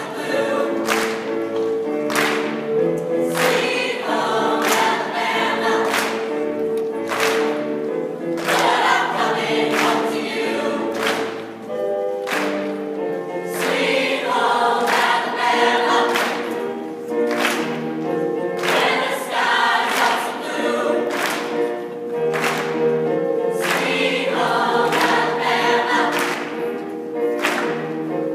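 A choir singing in harmony, many voices sustaining and moving through a melody together.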